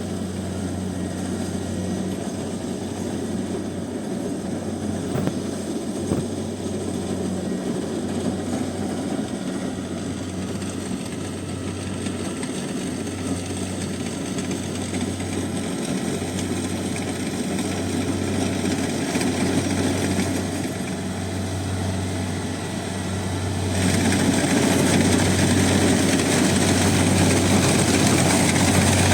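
Rice combine harvester running steadily, a low engine hum under the noise of its cutting and threshing machinery. Near the end it turns abruptly louder.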